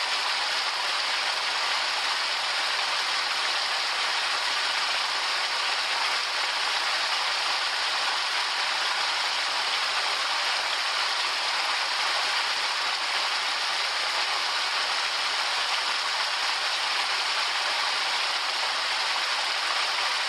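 Waterfall: falling water rushing in a steady, even hiss that does not change.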